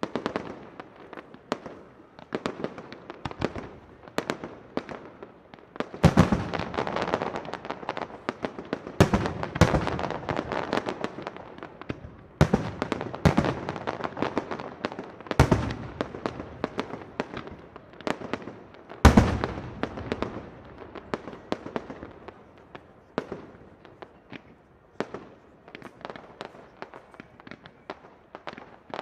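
Nico Europe fireworks display: a dense run of sharp reports and crackling from bursting shells and rising effects, with several heavy bangs, the loudest about two-thirds of the way through, thinning out near the end.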